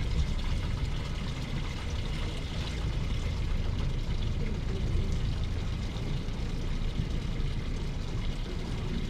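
Steady low rumble with water sloshing and splashing around a fishing boat. No distinct knocks or tones stand out.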